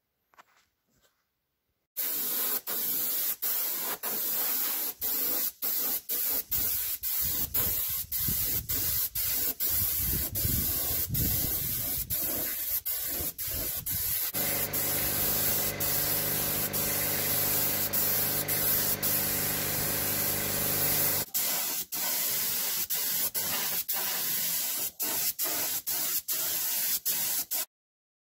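Compressed-air paint spray gun hissing in long passes, broken by many brief gaps. For about seven seconds in the middle a steady low hum runs beneath the hiss.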